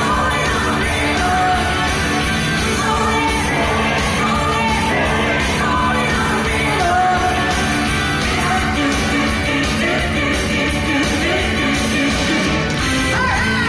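Choir singing a 1970s rock song live with a rock band accompanying, the music steady and loud throughout.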